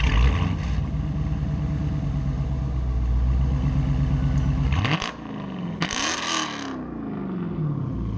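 Dodge Challenger Scat Pack's 6.4-litre HEMI V8 firing up with a loud flare, then settling into a steady fast idle. About five seconds in the throttle is blipped twice in quick succession, and the revs fall back down to idle.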